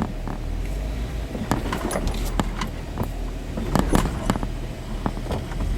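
Lifted Jeep Wrangler Rubicon crawling over a rocky trail: a steady low engine rumble under a scatter of sharp clicks, knocks and rattles.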